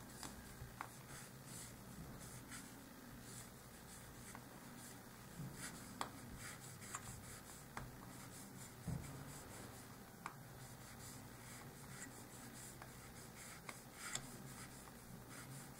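Faint rubbing of fingertips rolling a thin snake of polymer clay back and forth on a smooth work surface, with a few soft clicks.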